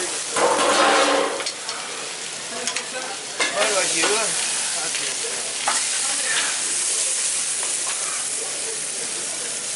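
Meat and sausages sizzling steadily on a hot flat-top griddle, a little louder for about a second near the start, with metal tongs clicking against the griddle now and then.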